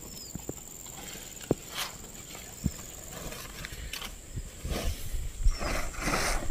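Footsteps with scattered clicks and snaps, turning into heavier rustling and crunching through vegetation in the last two seconds. Underneath runs a steady high insect drone, and a short high chirp comes every couple of seconds.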